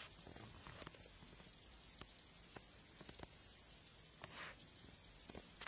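Near silence: room tone with a sharp click at the very start, a few faint clicks, and a brief soft hiss about four and a half seconds in.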